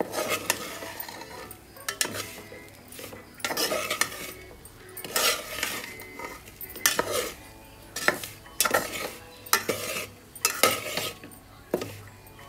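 Steel spatula scraping and stirring in a metal pan, turning stuffed bitter gourds through dry spice powder, in repeated scraping strokes roughly once a second.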